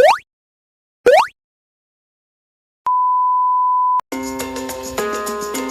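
Electronic sound effects: two short rising chirps, then a steady high beep held for about a second, followed by guitar-backed music starting about four seconds in.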